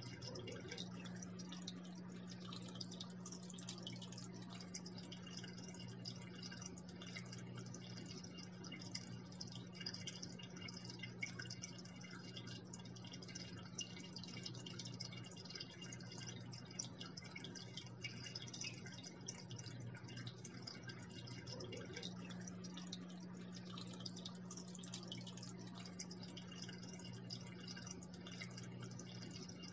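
Water falling and trickling into an aquarium, a steady fine splashing. A steady low hum runs underneath.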